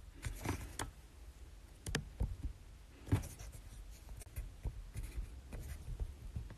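Irregular light taps and scratchy rubbing close to a phone's microphone, several a second: handling noise from the phone recording the live video.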